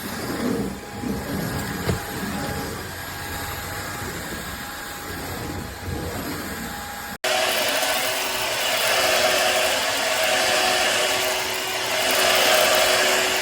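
Shark cordless vacuum cleaner running with a steady motor whine. About seven seconds in it cuts abruptly to a louder stretch of the vacuum running, with a lower whine.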